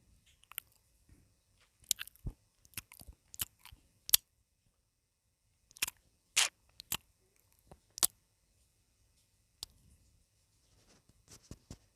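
Close-miked eating sounds: chewing mie ayam chicken noodles, heard as scattered short wet smacks and clicks in clusters with brief pauses between.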